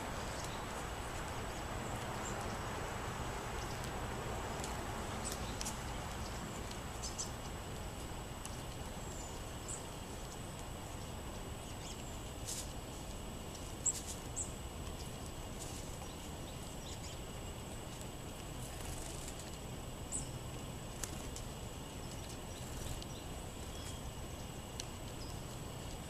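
Sparrows pecking at birdseed and peanuts on a wooden picnic table: scattered light clicks and taps, the sharpest about halfway through, over a steady outdoor hiss.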